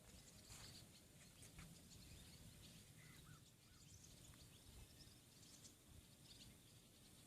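Near-silent outdoor ambience: a faint low background rumble with scattered short, high chirps from small birds or insects.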